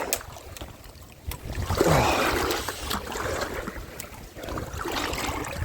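A person making his way through a shallow river and its undergrowth: water sloshing and rustling with a few small knocks, loudest about two seconds in, over the flow of the stream.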